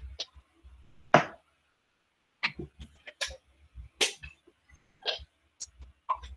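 Irregular short clicks and knocks of handling noise at a desk, the loudest about a second in, with a low hum that cuts in and out between them through a video call's microphone.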